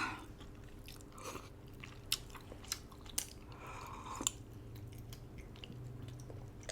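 A person chewing a mouthful of noodles and braised duck close to the microphone, with a few sharp mouth clicks.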